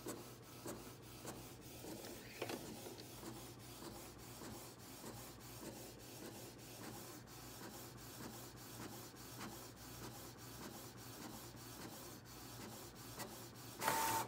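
Canon PIXMA inkjet printer printing an edible icing sheet: its print head shuttles back and forth in quick, regular passes with faint ticks, and the sound grows louder near the end.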